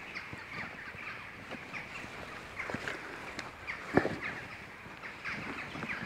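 Faint outdoor bird calls with scattered small clicks, and one sharper knock about four seconds in.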